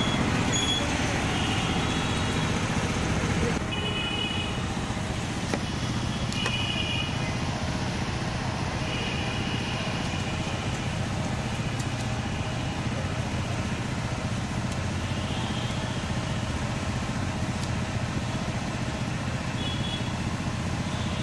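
Steady street traffic noise, with a few brief high-pitched tones several times and occasional faint clicks.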